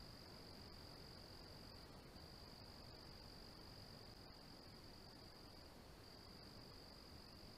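Faint, steady high-pitched trill of crickets, one continuous pitch that breaks off briefly twice.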